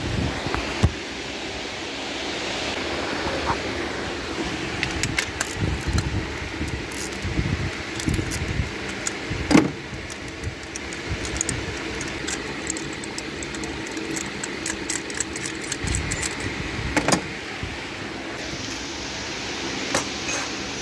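Metal hand tools clicking and clinking against the engine as a socket and ratchet work a spark plug loose and out, with a couple of louder knocks, at about nine and a half and seventeen seconds in, over a steady background hum.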